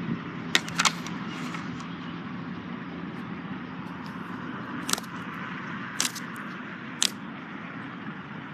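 Slime being worked by hand, with a handful of sharp clicking pops over a steady hiss.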